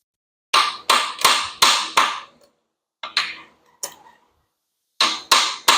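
Hammer tapping on the 1920 Nash's transmission housing to break loose a part sealed with RTV. There are three runs of sharp, ringing taps at about three a second, the middle run fainter; the part does not give.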